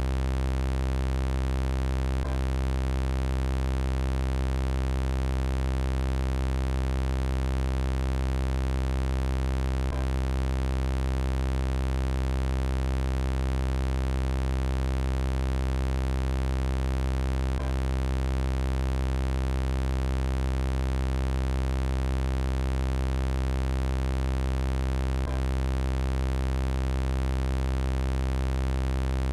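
Synthetic electronic buzzing drone, a steady, unchanging 'robot voice' sound effect built from many even overtones. A faint click recurs about every seven and a half seconds, where the effect loops.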